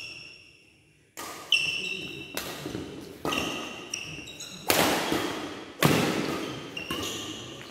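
Badminton doubles rally: rackets striking the shuttlecock in about seven sharp cracks roughly a second apart, the loudest two near the middle, each echoing in the hall, some followed by a brief high ring.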